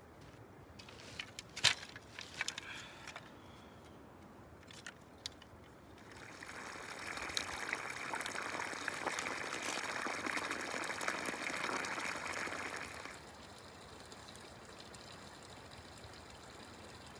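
A thin stream of water pours and splashes onto grass and fallen leaves, starting about six seconds in and cutting off suddenly about halfway. Before it come a few footsteps and light clicks.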